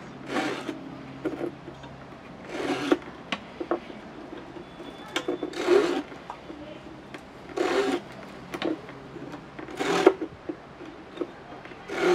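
A flat hand file rasping across a bamboo fishing-rod section in slow, separate strokes, about one every two seconds, with light taps of the tool in between.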